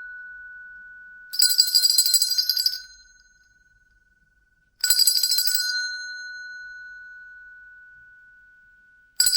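A hand bell shaken in three short bursts of rapid clapper strikes: one about a second in, one near the middle, and one at the very end. After each burst a single clear tone rings on and slowly fades.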